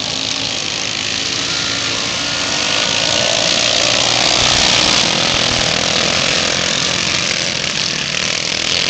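Racing riding lawnmowers' small engines running flat out as they pass, swelling to their loudest about halfway through and then easing off.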